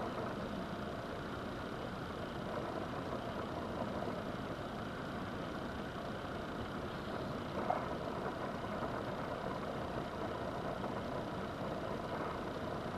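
Steady background hum, with one light click about eight seconds in as small reel parts are handled.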